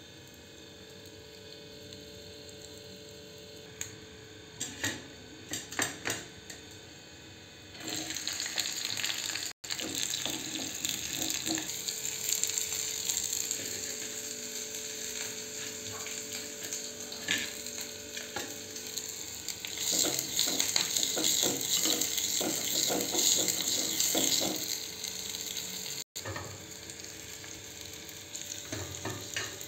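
Onion, green chilli and tomato sizzling in hot oil inside a small clay kulhad over a gas burner. The first several seconds are quieter, with a few knocks. The sizzling starts about a quarter of the way in and is loudest a little past the middle.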